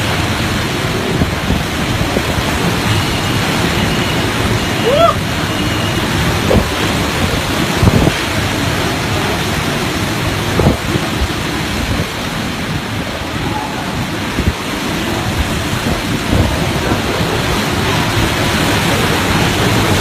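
Typhoon wind and driving rain making a loud, steady rushing noise, with occasional low thumps of gusts hitting the microphone.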